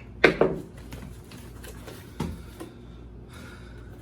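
A cardboard box of packaged snacks being opened and rummaged through: a few sharp knocks and crinkles, two loud ones in the first half-second and another about two seconds in.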